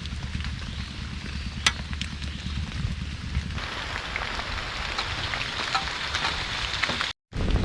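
Heavy rain falling steadily, with scattered sharp ticks over a low rumble; the rain grows denser and hissier about three and a half seconds in, and the sound cuts out briefly near the end.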